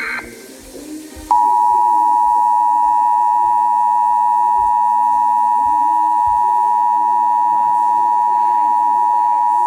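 Emergency Alert System two-tone attention signal, 853 and 960 Hz sounding together: a loud, steady dual tone that starts about a second in and holds for roughly eight seconds before cutting off abruptly. Right at the start, the last moment of the SAME digital header's screech ends.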